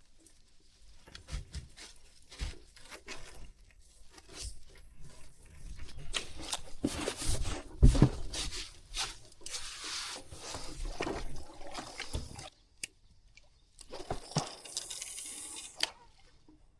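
Close handling noises: irregular rustling, scraping and soft knocks, with one loud thump about eight seconds in.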